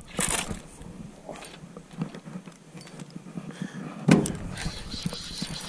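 Handling noise in a small fishing boat: scattered knocks and rustling, with one louder bump just after the start and a heavier one about four seconds in.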